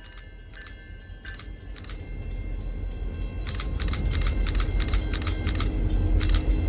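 MBTA commuter rail diesel locomotive approaching, its engine and wheel rumble building steadily louder. A bell rings over it in repeated strikes, coming more often in the second half.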